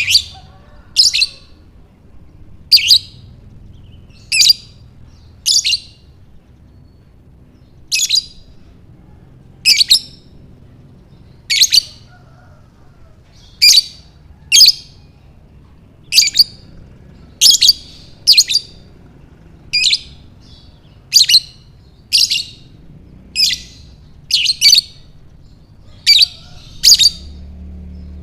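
Lovebird giving short, shrill, high chirps over and over, roughly one every second or two, sometimes two in quick succession.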